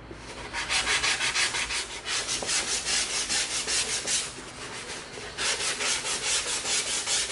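A 220-grit sanding stick rubbed along the edge of EVA foam in quick back-and-forth strokes, about four or five a second, with a short lull about four seconds in. It is light sanding to smooth slight bandsaw marks off the foam edge.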